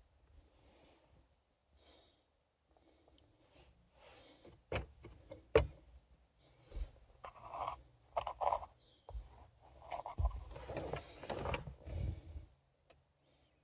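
Hand handling noises on a car's plastic interior trim: fingers rubbing and scuffing the centre console with dull knocks. There are two sharp clicks about halfway through, the second the loudest, then a few seconds of busier rubbing and bumping.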